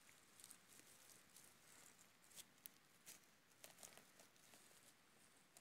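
Faint crackling and rustling of dry leaf litter and soil, with a few soft snaps, as a hand works a bolete mushroom loose from the ground.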